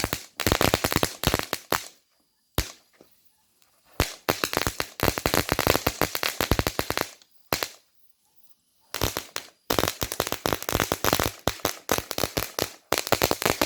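Firecrackers going off in rapid crackling runs of sharp bangs: three long runs separated by short quiet gaps, with a single loud bang in each gap.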